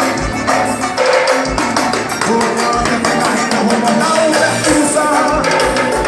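Live band music: a Latin-style dance tune with a drum beat and percussion.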